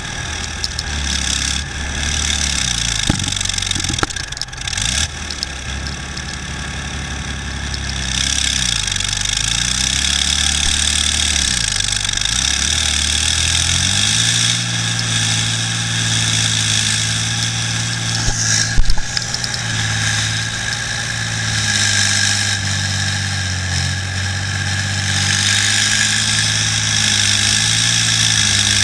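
BVP-1 (BMP-1) infantry fighting vehicle on the move, its UTD-20 V6 diesel engine running with the pitch rising and falling through the first half, then holding steady. A single loud bang comes about two-thirds of the way through.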